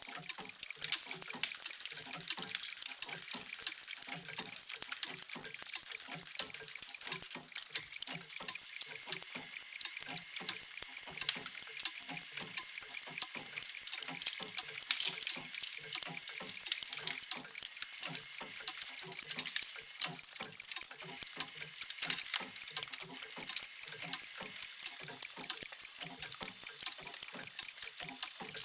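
Many mechanical clocks ticking at once and out of step with one another: a dense, steady patter of sharp high ticks with deeper tocks underneath.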